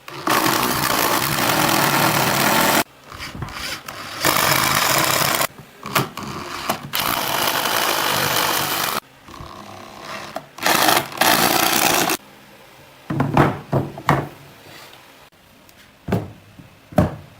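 A woodworking power tool run in several bursts of one to three seconds, then a few sharp knocks of wood near the end.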